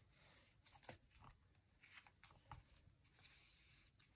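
Near silence, with faint paper rustling and scraping and a few soft ticks as paper is handled and worked on a desk.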